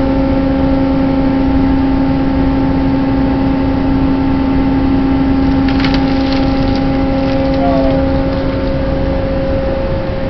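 Steady drone of a ship's machinery running, with a constant hum. A few brief rattles come about six seconds in.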